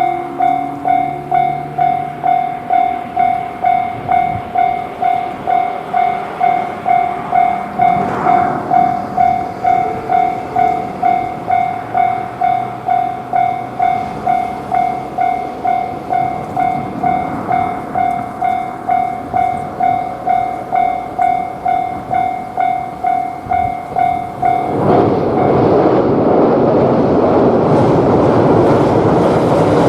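Japanese railroad crossing's electronic warning bell ringing its 'kan-kan' at about two strikes a second. About 25 seconds in the bell cuts off and an electric train passes over the crossing with a loud, steady rush of wheel and rail noise.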